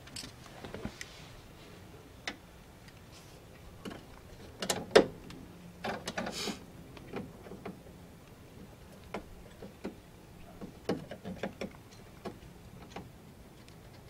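Scattered clicks and taps of a hand tool working the remains of a rivet out of the door's inside-handle mount. The loudest is a sharp tap about five seconds in.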